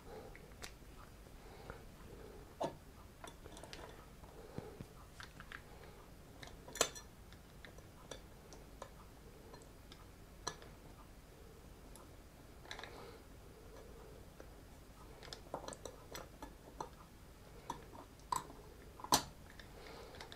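Small metal screws being driven by hand with a screwdriver into the base plate of a CPU cooler pump block: faint scattered clicks and short scrapes of screw and tool, with two sharper clicks, one about a third of the way in and one near the end.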